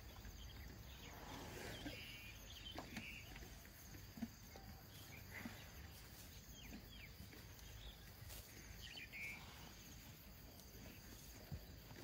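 Faint outdoor ambience: scattered short bird chirps and insect calls over a low steady rumble, with a few soft low thuds.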